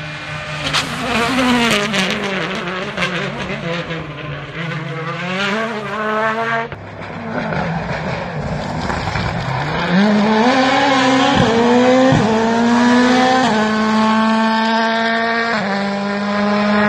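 World Rally Car 1.6-litre turbocharged four-cylinder engines at full stage pace as cars pass, the note sweeping up and down with revs. The first car gives a run of sharp cracks and pops as it comes off the throttle; the second revs up hard with abrupt gear changes about two-thirds of the way through and again near the end.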